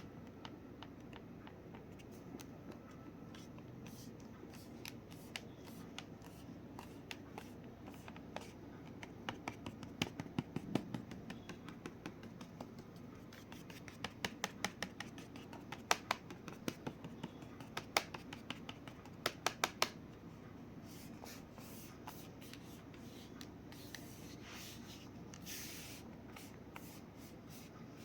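Xiaomi RedmiBook laptop body creaking: irregular sharp clicks and crackles, thickest in the middle stretch, with a short hiss about two-thirds of the way through.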